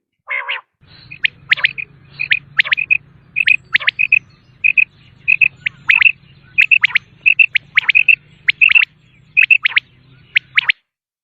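Common quail calling over and over: short, sharp notes in quick clusters of two or three, some sweeping sharply downward, with a faint low hum underneath.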